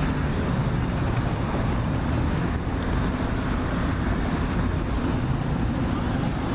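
Steady low rumble of wind buffeting the microphone, with a few faint ticks over it.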